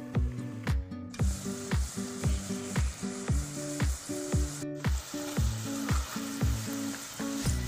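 Potato fries sizzling as they deep-fry in hot oil, under background music with a steady drum beat and held bass and melody notes.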